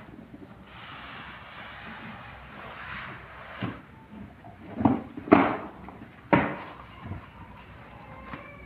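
Cardboard packaging being handled: a few seconds of rustling and scraping, then four sharp knocks and thumps, the loudest about five seconds in.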